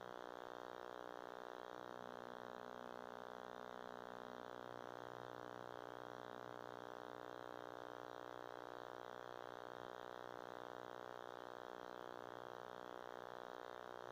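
Quiet, steady electronic buzzing hum made of many stacked tones, unchanging throughout.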